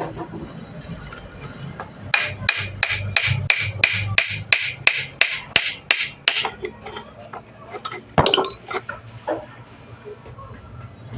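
Hammer blows in a quick, even run of about fifteen strikes, roughly three a second, followed a little later by one heavier knock.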